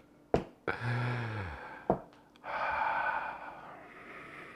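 A man's low, falling 'mmm' of appreciation, followed by a long breathy breath, with a couple of light clicks in between.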